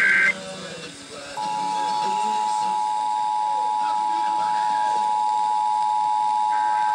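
Emergency Alert System broadcast. The last burst of the SAME digital header data ends just after the start. About a second and a half in, the EAS two-tone attention signal (853 and 960 Hz together) starts and holds steady: the alert tone that comes before the spoken required monthly test message.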